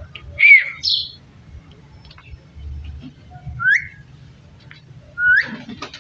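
Pet parrot giving short whistled calls, several of them rising in pitch, a second or two apart; the loudest comes about half a second in, and a few short clicks follow near the end.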